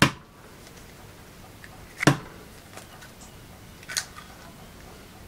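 Eggs being cracked open for pasta dough: three short, sharp cracks about two seconds apart, one egg after another.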